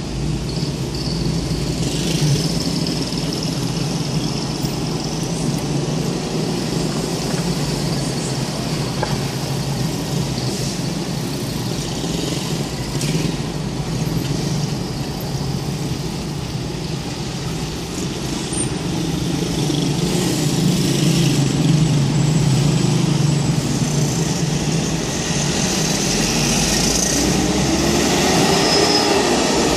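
Road traffic noise heard from inside a car in slow, congested traffic: a steady hum of engines and tyres. Near the end an engine revs up, rising in pitch.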